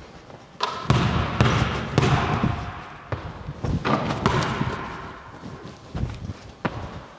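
Basketball bouncing on a hardwood gym floor and hitting the rim, a string of irregular thuds and clanks that echo in the hall.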